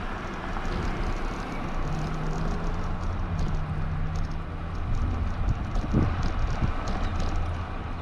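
Wind rushing over the microphone and road noise while riding a bicycle on a road. A low steady hum comes in about two seconds in and drops lower about five seconds in.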